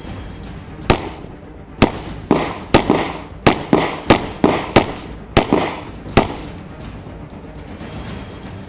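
Semi-automatic pistol firing about a dozen shots in quick strings, mostly a third to half a second apart with short pauses between them. The shooting stops about six seconds in.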